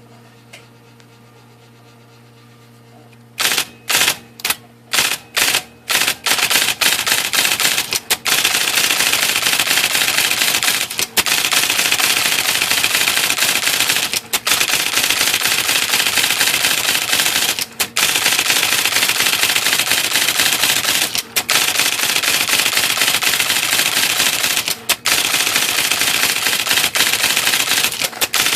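IBM Selectric II electric typewriter typing a test after a rotate-band adjustment for mis-printed characters. After a few seconds of low hum, the typeball mechanism strikes a handful of separate characters about two a second, then types rapidly and continuously, with brief pauses about every three and a half seconds.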